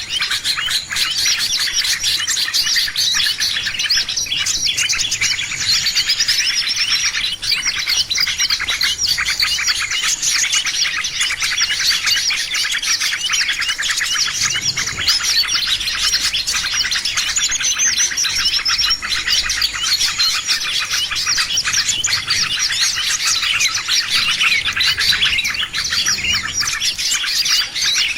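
A dense chorus of many small songbirds chirping and twittering at once, with overlapping high-pitched chirps and no pauses: a pikatan lure recording meant to draw in all kinds of small birds.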